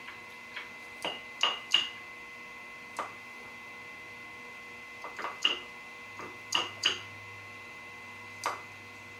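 Light metallic clicks and taps at irregular intervals from working the milling machine while centering the workpiece, over a steady electrical hum.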